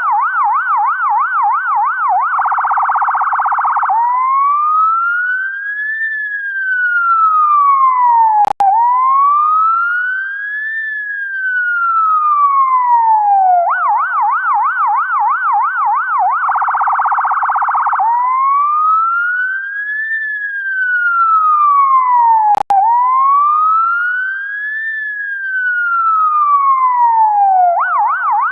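UK ambulance siren cycling through its tones: a fast yelp of about five rises and falls a second, a short harsher rapid warble, then a slow wail rising and falling over about two seconds each way. The cycle repeats about every fourteen seconds, and a brief click breaks in twice.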